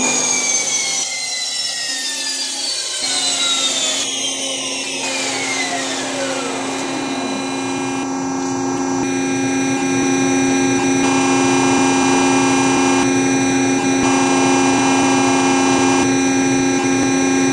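Linear friction welding machine just after a weld in construction-grade steel: a whine falls steadily in pitch over the first several seconds. The machine then settles into a steady hum with several held tones.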